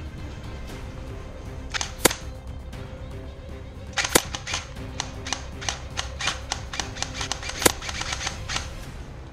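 Airsoft gun shots over background music: two sharp cracks about two seconds in, then a run of about a dozen single shots at roughly three a second, with one louder crack near the end.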